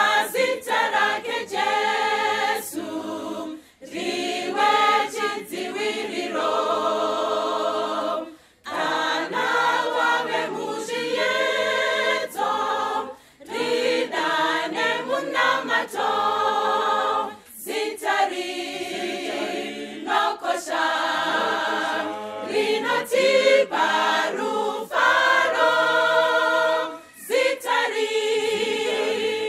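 Choir singing a hymn, phrase after phrase, with brief breaks between phrases.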